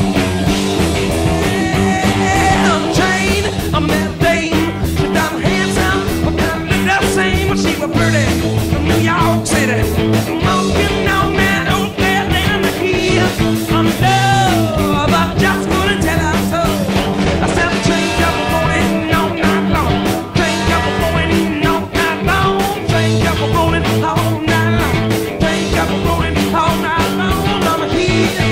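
Hard rock band playing live, with electric guitars, bass and drums.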